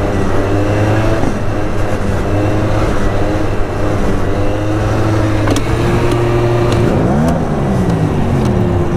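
MBK Booster 50cc two-stroke scooter engine running at a steady cruising pitch under way, with wind rush. Its pitch shifts briefly about seven seconds in. The rider finds it has no pickup.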